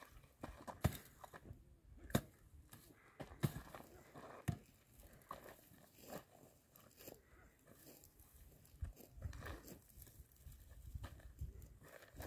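A short-handled mattock striking dry, stony ground, four sharp blows in the first half, uprooting dry desert shrubs. It is followed by fainter crackling and tearing of the brittle shrubs as they are pulled up by hand.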